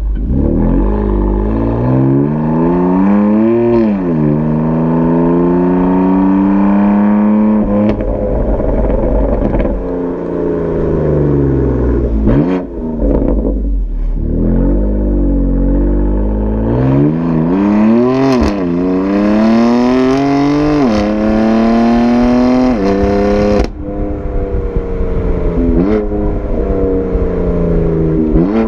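BMW M4 Competition's twin-turbo straight-six heard right at its M Performance Exhaust tips, revving up hard and dropping back several times as the car pulls through the gears, with a sudden cut in pitch and level near the end. The note is deep and loud.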